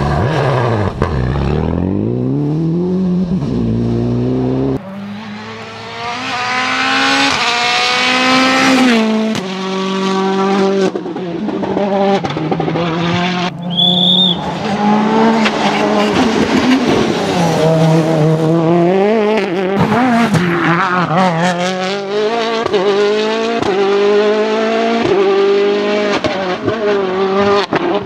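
Rally car engines revving hard, pitch climbing and falling back again and again through gear changes, as several cars in turn accelerate past on tarmac stages.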